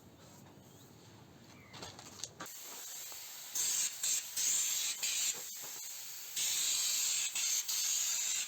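Compressed-air stone chip gun spraying Teroson stone chip guard: a hiss of air starts about two and a half seconds in and rises into two loud blasts of spray, each a second or two long.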